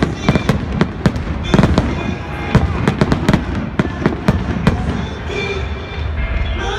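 Fireworks going off in quick succession: a dense string of sharp bangs and crackles through the first five seconds, thinning out near the end.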